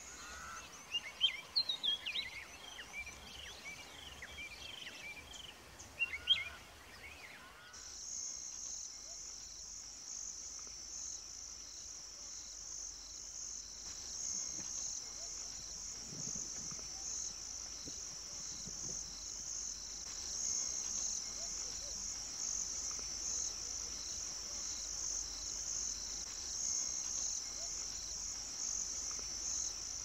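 Wild birds giving quick high chirping calls, loudest around one second and six seconds in. From about eight seconds on comes a steady, high-pitched insect trill with an even pulse.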